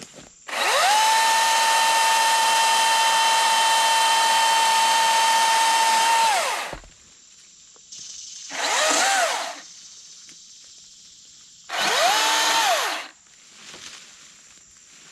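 Milwaukee M18 Fuel battery chainsaw running. Its electric motor spins up to a steady high whine, holds it for about six seconds and winds down. It then gives two short bursts of about a second each.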